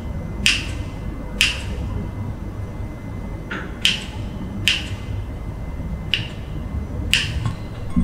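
Kitchen scissors snipping the crusts off slices of white sandwich bread: about seven sharp snips, unevenly spaced, over a low steady hum.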